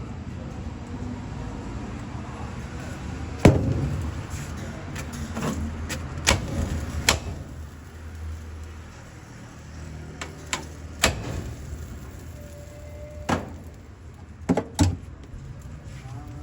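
Scattered sharp knocks and clatters of utensils while a chicken shawarma is made, the loudest about three and a half seconds in, over a low steady rumble.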